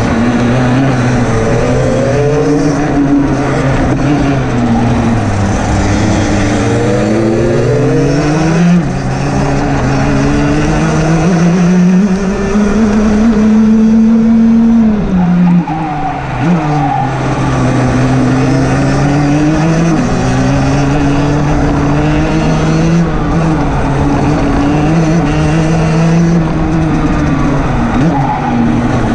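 Rotax DD2 kart's 125 cc two-stroke single-cylinder engine at racing speed. Its note climbs under acceleration and falls away several times as the kart slows for corners, with a sharp drop about halfway through.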